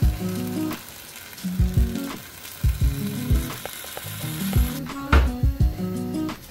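Stew of meat, carrots and onions sizzling in a stainless steel pot while it is stirred with a wooden spoon; the sizzling hiss stops about five seconds in. Background music with a repeating low beat plays throughout.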